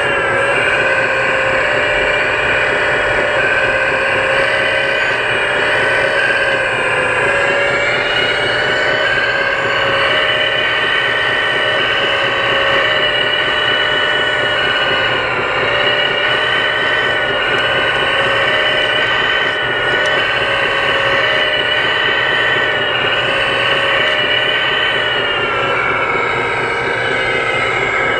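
Hydraulic pump of a 1/14-scale radio-controlled hydraulic CAT 330D excavator whining steadily as the machine digs and swings, its pitch sagging and recovering slightly as the hydraulics take load.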